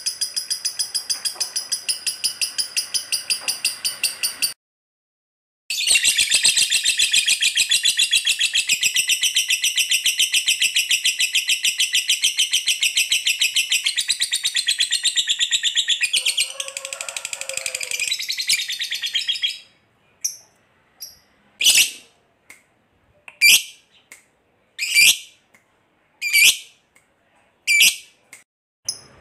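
A lovebird's ngekek: a long, fast chattering trill of rapidly repeated high notes. It breaks off completely for about a second near the five-second mark, then runs on until about twenty seconds in. The rest is a string of short single chirps, less than a second apart.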